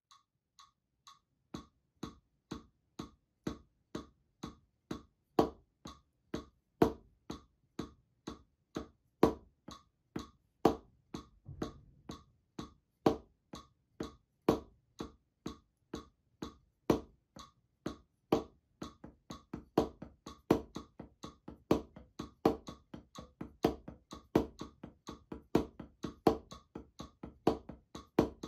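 Wooden drumsticks striking a RefleXX rubber practice pad in a steady sticking exercise with accented strokes. The strokes start at about two a second and grow louder over the first few seconds, then double to about four a second roughly two-thirds of the way in.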